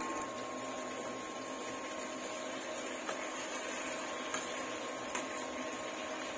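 A steady hiss with a faint hum while tofu cooks in a wok, with a few light clicks of a spatula against the wok about three, four and five seconds in.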